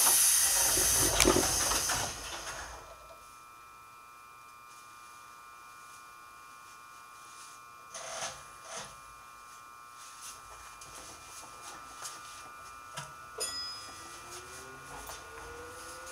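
JR 205 series commuter train: a loud burst of compressed-air hiss from its air system for about the first three seconds, then a steady high electrical whine with a few short clunks. Near the end a rising whine sets in as the train starts to pull away.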